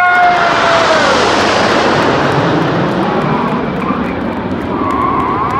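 Red Arrows' formation of nine BAE Hawk T1 jet trainers flying over, a loud steady jet roar that slowly fades as they pass.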